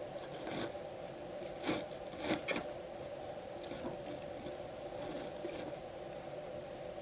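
Scattered scrapes and short clicks from foley props being handled, over a steady hum.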